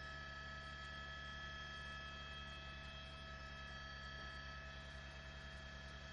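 Faint steady electrical hum with several thin high steady tones and light hiss: background noise in the broadcast audio feed.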